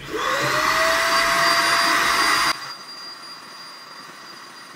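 Vacuum cleaner switched on, its motor whine rising as it spins up over a loud rush of air, sucking milling chips out of freshly engraved Corian. About two and a half seconds in the rush of air drops sharply while the motor keeps running at a steady pitch.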